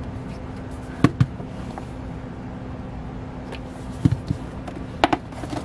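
Light knocks and taps from a large photocard binder being handled, turned on its side and opened, coming in three quick pairs over a steady low hum.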